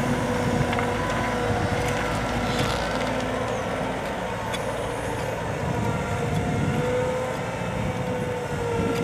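Cat M313D wheeled excavator running, its engine and hydraulics giving a steady drone with a held, slightly wavering whine, and a few faint knocks.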